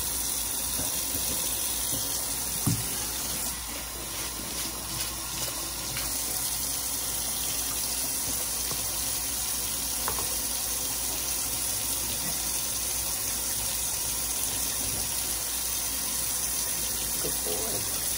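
Kitchen faucet running a steady stream into a stainless steel sink, with a small knock about 2.7 s in.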